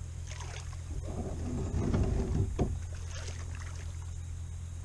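A kayak hull rubbing and knocking as it is handled at the water's edge. The rubbing is loudest around two seconds in and ends with a sharp knock, over a steady low hum.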